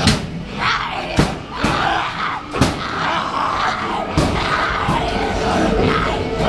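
Loud music mixed with yelling and screaming from haunted-house zombie actors, cut through by about six sharp bangs at irregular intervals.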